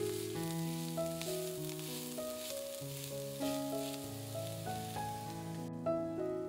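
Food sizzling as it fries in a pan, a steady crackling hiss that cuts off sharply near the end. Background music with a slow melody plays throughout.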